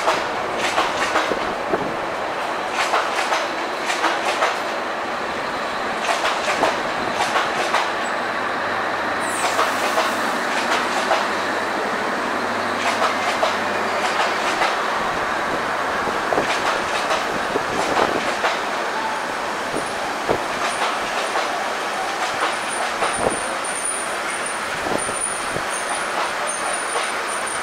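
Bangladesh Railway intercity passenger coaches rolling past on the track. There is a steady rumble, with clickety-clack as the wheels cross rail joints, coming in clusters of clicks every few seconds.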